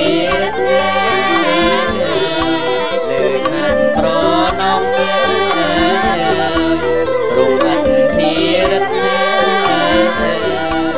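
Cambodian Bassac opera ensemble music: an ornamented bamboo flute melody with a two-string fiddle and keyboard, over a steady drum beat.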